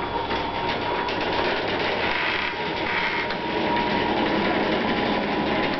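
Motorised sectional overhead door running, a steady mechanical running noise with a faint steady whine.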